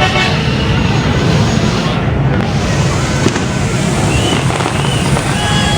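Fireworks crackling and popping over a steady din of street traffic, with a few sharp bangs and some short high-pitched tones.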